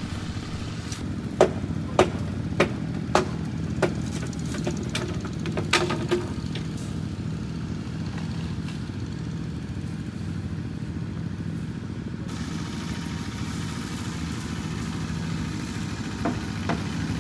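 A small engine idling steadily, with a few sharp clicks during the first six seconds.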